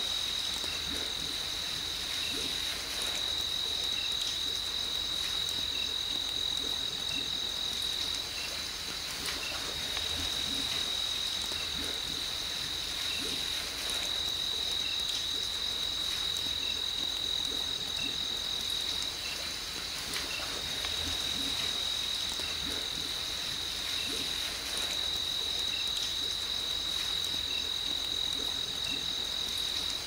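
Night insect chorus: one steady high-pitched trill that never breaks, with short faint chirps repeating about once a second.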